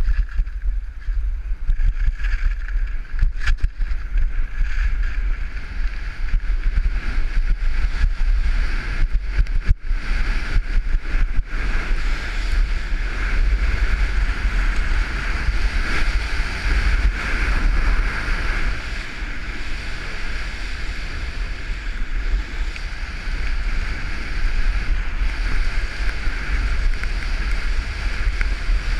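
Wind buffeting the microphone of a head-mounted camera during a downhill ski run, over the steady hiss and scrape of skis on packed snow. A few knocks come about three seconds in.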